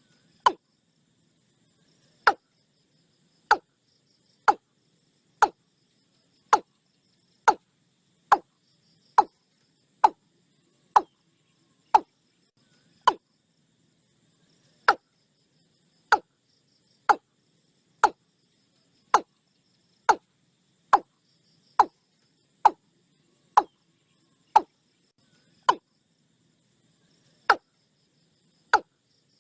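A long series of sharp, short knocks, roughly one a second with a few longer gaps, like hard chops or taps on wood.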